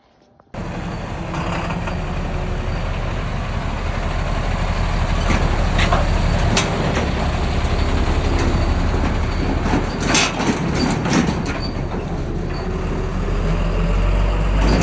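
Heavy machinery running with a steady low hum that starts suddenly, with scattered sharp knocks and clanks over it.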